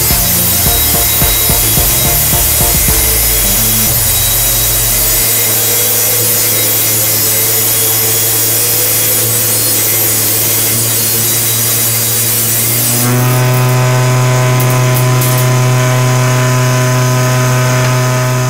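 Homemade table saw with a 7-inch blade on an AC motor, ripping a thin strip off a board: blade cutting noise over a steady motor hum. About two-thirds of the way through the cut ends, and the saw runs on freely with a cleaner, steadier hum.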